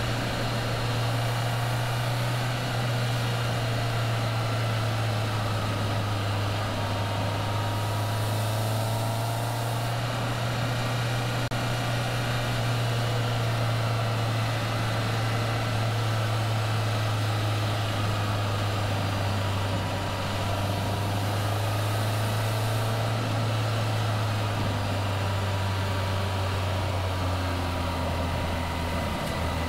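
Caterham Seven's engine pulling steadily at cruising speed, heard from the open car over wind and road noise. Near the end the engine note drops in pitch in two steps as the revs fall.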